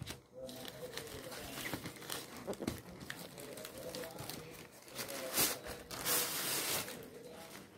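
Plastic courier mailer bag crinkling and rustling as it is handled and opened, with many small crackles. There are two louder rushes of plastic noise about five and six seconds in, the second one longer, as the yellow plastic inner bag is drawn out.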